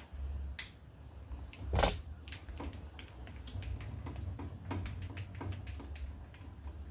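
Metal clicks and clunks of a metal lathe's carriage being moved along the bed toward the chuck, with one loud knock about two seconds in.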